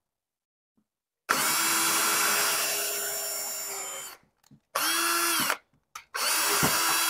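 Cordless drill boring a hole through PVC pipe with a twist bit. It runs in three goes: a long run starting about a second in, a short spin-up and spin-down around the middle, and another run starting near the end.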